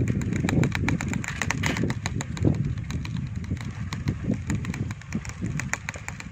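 Bicycle freewheel ticking rapidly and evenly as the bike coasts, over a low rumble of wind on the microphone.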